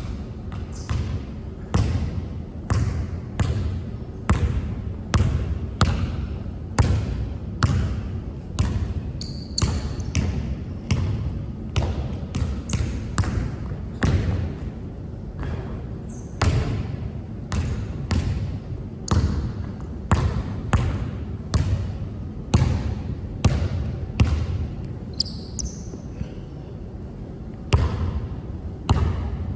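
Basketball being dribbled hard on a court, about two bounces a second with a ringing echo after each, during a quick dribbling drill. Short high squeaks come twice.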